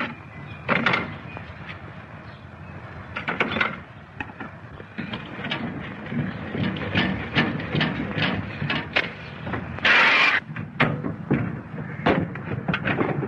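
Sharp knocks, taps and clattering from hammering at a car's built-in phonograph, in the crackly sound of an early-1930s film soundtrack, over a low steady rumble. About ten seconds in comes a short, loud hiss.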